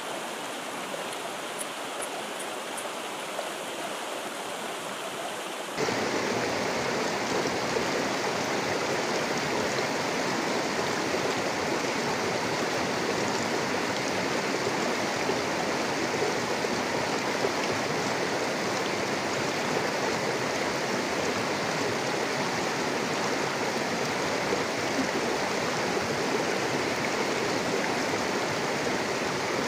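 Fast river water rushing through rocky shallows, a steady rushing noise that gets louder about six seconds in.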